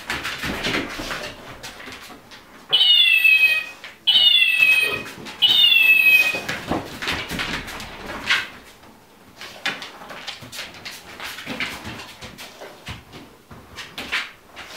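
A small electronic toy meows three times in quick succession, loud and nearly identical, each meow about a second long and falling in pitch. Quieter clicks and shuffling follow.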